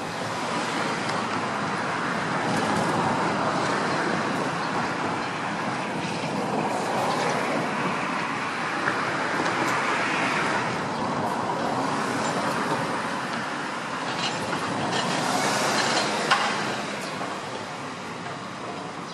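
Steady road traffic noise, swelling and easing as vehicles pass, with a single sharp click near the end.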